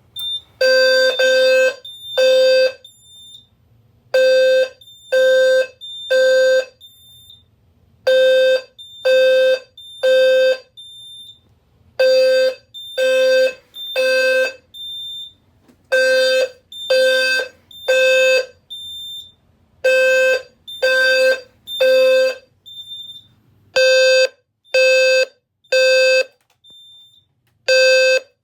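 System Sensor P2RH-LF low-frequency sounder strobe sounding a fire-alarm drill in the temporal-three evacuation pattern: three low, buzzy square-wave blasts near 520 Hz, then a pause, repeating about every four seconds. A short high beep sounds between some of the blasts.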